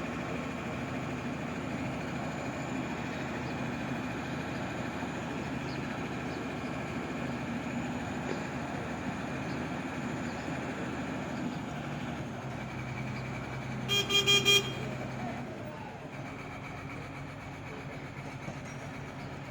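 Steady engine and street noise, with a vehicle horn beeping three quick times about two-thirds of the way through.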